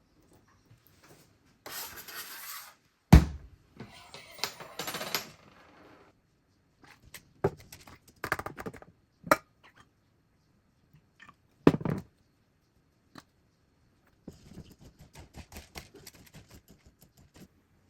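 Kitchen food-prep sounds: scattered knocks and clinks of utensils and dishes with stretches of rustling, two sharper knocks about 3 and 12 seconds in, and a run of quick light taps near the end.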